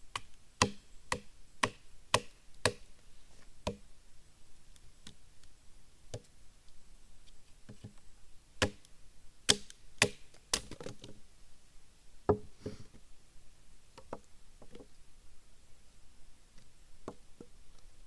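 Firewood being chopped by hand: sharp wooden knocks, coming in runs of several strikes about half a second apart with pauses between. Some of the wood is rotted.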